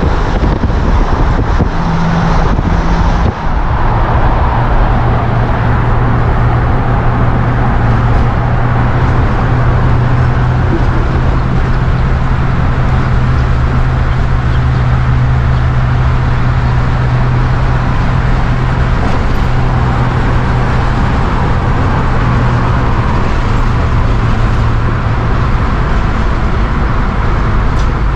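Steady drone of a motorhome cruising at freeway speed, heard from inside the cab: the 7.4-litre 454 big-block V8 of its 1988 Chevy P30 chassis holding a constant low hum under road and wind noise.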